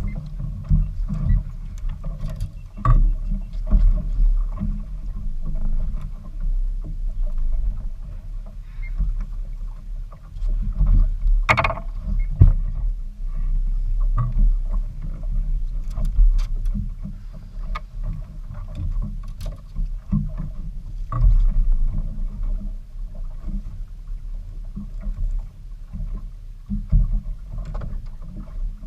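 A boat on the water: a loud, uneven low rumble runs throughout under a faint steady hum, with scattered knocks, the sharpest about halfway through.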